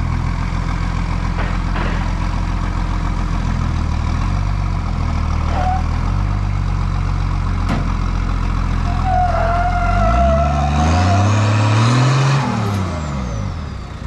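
Toyota Land Cruiser pickup's engine running under load in low range while towing a bulldozer track by chain. About ten seconds in the revs rise, then fall back near the end, with a brief wavering squeal as they climb.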